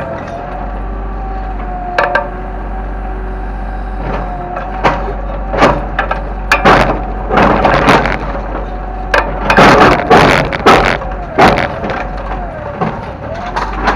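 Kobelco excavator engine running with a steady, slightly wavering whine, while a series of loud cracks and crunches of breaking wood and debris comes from about four seconds in until near the end, as the machine tears down a house.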